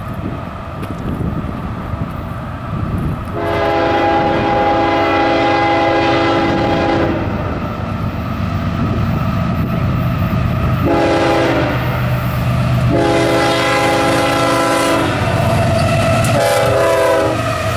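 CSX freight train's diesel locomotive blowing its multi-chime air horn as a grade-crossing warning while it approaches. A long blast starts about three seconds in, followed by a shorter one, another long one, and a brief one near the end. Under it runs the rumble of the locomotives and train.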